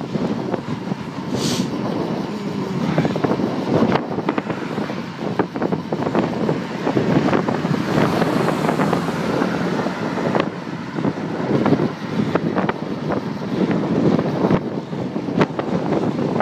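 Wind buffeting a moving camera's microphone, a steady rushing noise with road rumble underneath and frequent small knocks and rattles.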